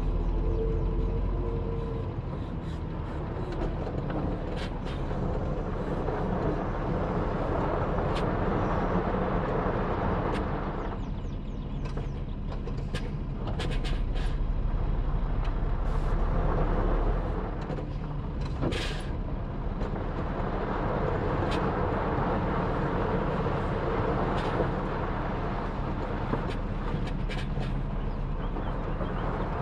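Scania R580 truck's V8 diesel engine running steadily at low revs while the truck manoeuvres, with a few short ticks and a brief hiss a little past the middle.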